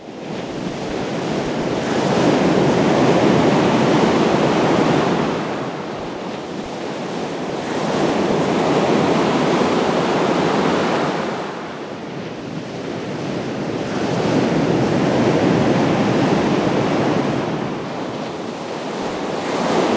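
Gulf of Mexico surf washing onto the beach, swelling and easing about every six seconds, with wind on the microphone.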